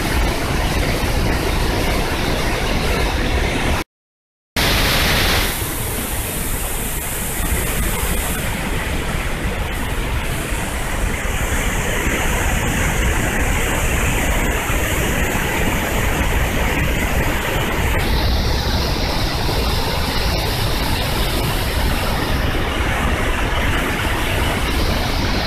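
Zongo Falls, a large waterfall, roaring: a steady, heavy rush of plunging water, broken by a brief silent gap about four seconds in.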